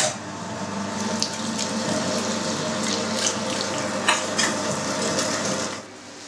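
Electric meat grinder running steadily while grinding chunks of beef, with occasional short clicks as the meat is pushed down. It switches on sharply at the start and cuts off near the end.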